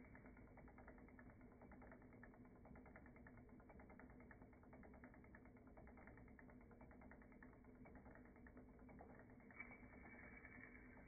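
Near silence: a faint steady hum with a fine, rapid ticking.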